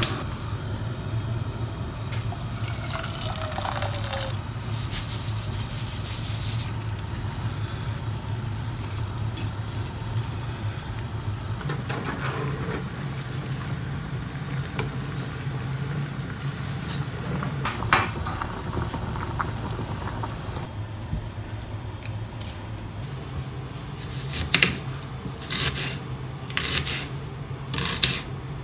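Cooking sounds at a gas hob: a steady low hum under the clatter of a pot and metal tongs stirring spaghetti in boiling water. Near the end, a knife slices a red onion on a wooden chopping board in several sharp cuts.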